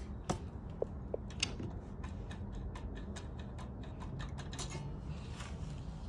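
An irregular series of light, sharp clicks and taps, roughly three a second, over a low steady hum.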